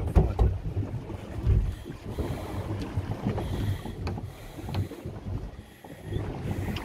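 Wind buffeting the microphone out on a boat at sea, an uneven low rumble, with a few faint knocks.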